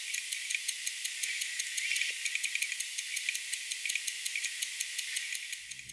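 Vostok 2416B automatic movement in an Amphibian Classic 090662M ticking, a rapid, even tick of about five to six beats a second over a steady hiss. The tick is discreet.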